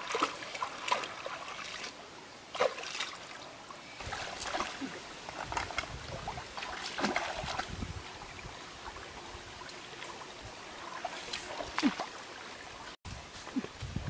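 Shallow stream trickling over rocks, with irregular splashes and sloshes as hands rinse a bunch of leaves in the water.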